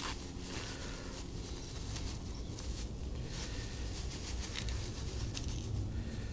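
Thin plastic bag crinkling and rustling in irregular bursts as gloved hands handle and unwrap it, over a steady low rumble.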